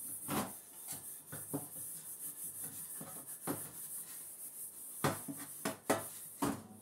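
A small metal pot scrubbed by hand with a wire scourer: a run of rasping scrubbing strokes, with a few sharper, louder scrapes or knocks near the end.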